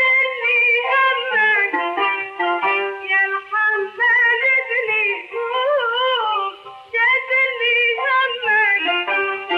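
Music: a high, ornamented melody line that glides between notes, with vibrato around the middle, in the style of an old Iraqi song recording.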